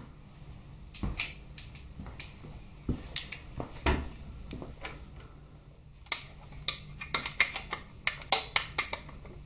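Irregular clinks and knocks of metal hand tools being handled in motorcycle engine work, with a busier run of quick clinks in the last few seconds.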